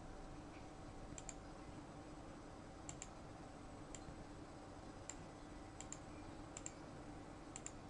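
Faint, scattered computer mouse clicks, about eight of them, over a low steady room hum.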